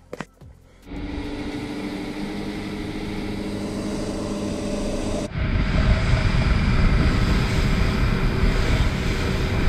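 Twin Yamaha 150 outboard motors running steadily as the boat gets underway. About five seconds in, this gives way suddenly to a louder rush of wind and water as the boat runs at speed.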